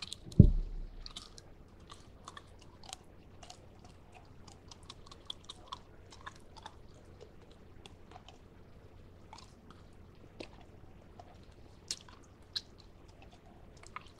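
Close-up chewing of a freeze-dried peach ring gummy, with many small clicks and crackles through it. One loud low thump about half a second in.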